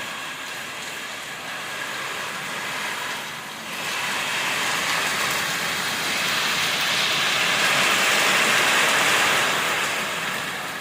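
Heavy rain pouring down in a storm, growing louder about four seconds in and easing off near the end.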